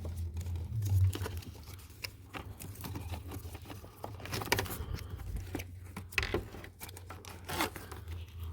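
Rustling, scraping and small clicks of a car's wiring harness and its wrapping being handled and pulled by hand, over a steady low hum.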